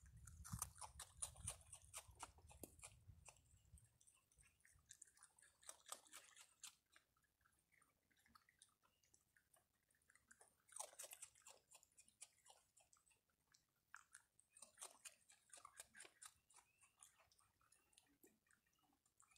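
Faint raccoon chewing and crunching food at close range: runs of quick crunching clicks come in bursts with short pauses between. A low rumble is there for the first few seconds.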